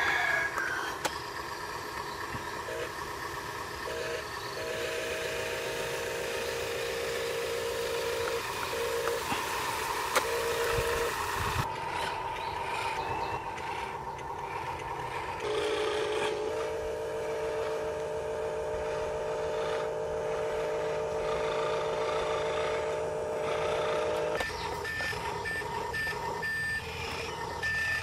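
Electric motors and gearboxes of toy remote-control construction vehicles whirring in spurts, each spurt lasting several seconds. Near the end, a truck's electronic reversing beeper starts up and repeats evenly.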